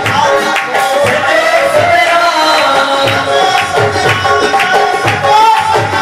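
Devotional dhuni hymn sung into microphones, with tabla drumming a steady beat under the melody.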